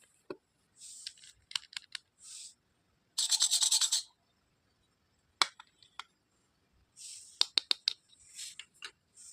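Plastic pieces of a toy doctor set being handled: sharp clicks and short scratchy rustles. There is a loud rapid rattle lasting under a second about three seconds in, and a quick run of clicks near the end.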